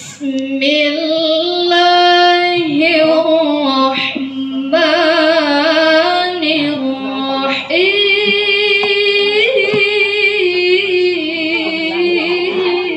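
A woman reciting the Quran in the melodic tilawah style: long held notes with wavering ornaments, in phrases broken by short pauses for breath about five and eight seconds in.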